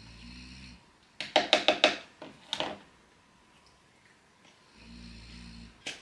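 Plastic dust container and filter parts of an AEG HX6 cordless handheld vacuum being worked apart by hand. A low rasping scrape comes at the start and again near the end. A quick run of about five sharp clicking knocks comes around a second and a half in, with a couple more just after.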